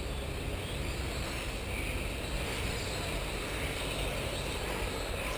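Electric 1/10-scale RC Formula 1 cars racing, a steady hum of motors and tyres over a continuous low rumble.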